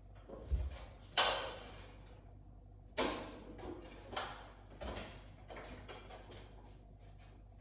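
Handling noises from a man working on an aluminium stepladder: a dull thump about half a second in, then a string of short rustling, scraping bursts and light knocks, the loudest just after one second and at three seconds.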